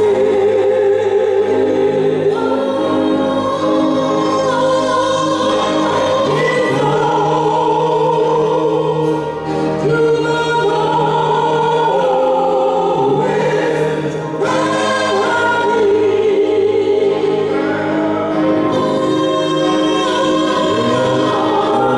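Three vocalists, a man and two women, singing a gospel hymn together into microphones, with organ and piano accompaniment; long held sung notes with vibrato over steady sustained chords.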